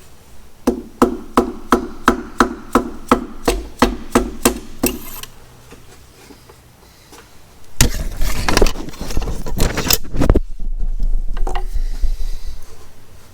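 About a dozen quick, even hammer taps, about three a second, typical of driving an oiled piston and its rings down through a ring compressor into the cylinder bore of a John Deere 6068 diesel block. Later comes a couple of seconds of louder, rattling clatter.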